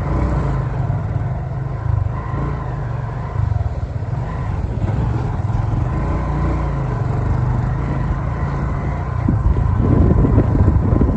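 Car driving, its engine and tyre noise a steady low rumble, getting louder and rougher near the end.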